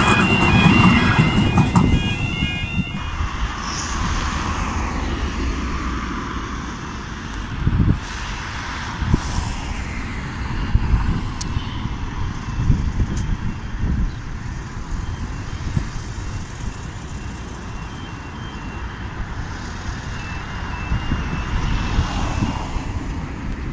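A Tyne and Wear Metro train rumbles over a level crossing while the crossing's warning alarm sounds in alternating tones. Both cut off about three seconds in, giving way to wind buffeting the microphone over steady road traffic, with faint alternating beeps near the end.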